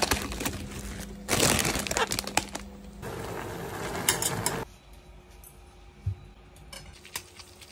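A plastic instant-noodle packet crinkling and crackling as it is handled and opened. A steady low hum runs under it and cuts off about two-thirds of the way through, followed by a few light clicks of chopsticks against a steel saucepan.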